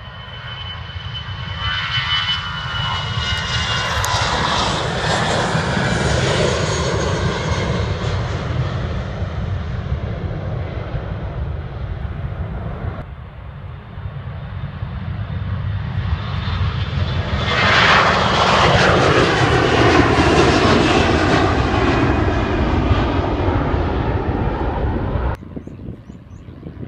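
Jet airliner engines passing close by, a loud swell of noise with a whine that falls in pitch as the aircraft goes past. The sound cuts off abruptly about halfway through and a second aircraft passes, louder still, before another sudden cut near the end.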